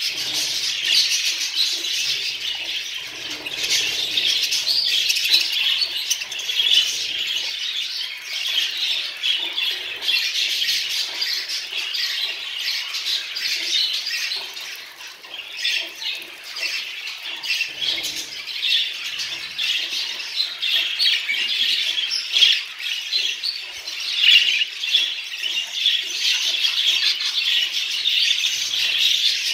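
A flock of budgerigars chattering and warbling continuously, a dense mix of chirps and squawks, with occasional wing flutters as birds shift around the cage.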